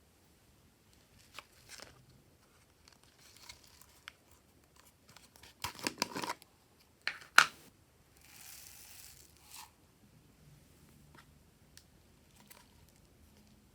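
Glossy slime being stretched and pressed by hand, giving scattered sticky clicks and pops: a cluster of them around six seconds in, the loudest snap about a second later, then a short tearing hiss.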